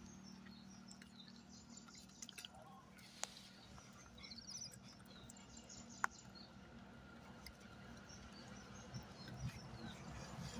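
Quiet outdoor ambience with a faint steady hum, a few faint high chirps, and two sharp clicks about three seconds apart.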